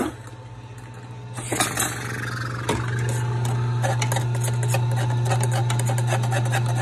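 Electric juicer motor running with a steady low hum, with fast rattling clicks over it from about halfway through.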